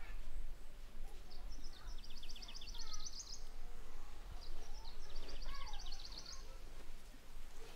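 A small bird sings a rapid, even trill of repeated high notes twice, each about two seconds long, among fainter scattered chirps.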